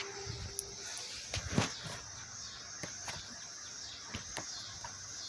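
Phone handling noise: scattered clicks and rubbing over a steady hiss, with one louder knock about one and a half seconds in.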